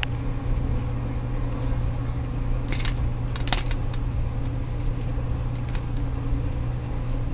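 Steady low mechanical hum, with a few light clicks about three seconds in.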